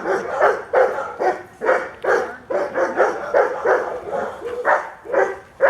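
Dog barking over and over, about two loud barks a second.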